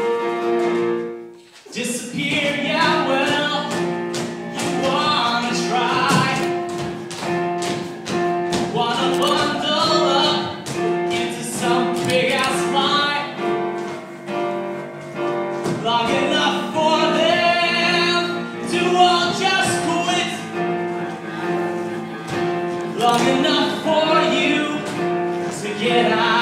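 Show tune with singing over instrumental backing, with sharp beat hits through it. The music drops out briefly and comes back in just under two seconds in.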